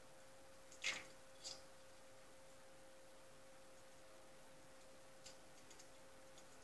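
Near silence over a faint steady hum, broken by a sharp tap about a second in, a softer one half a second later and a few faint ticks near the end: a cockatiel's claws and beak tapping on the window frame and blinds as it climbs.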